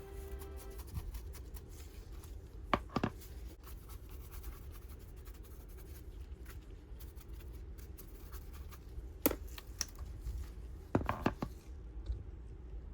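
Brush scratching over the painted surface of a resin 3D-printed statue as highlights are dry-brushed on, with a few sharp clicks about three, nine and eleven seconds in.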